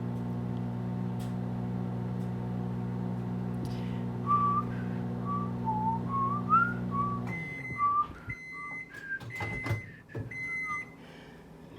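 Microwave oven running with a steady hum, over which a person whistles a short tune. The hum cuts off about seven seconds in, and the microwave beeps four times to mark the end of the cooking cycle, with a few knocks in between.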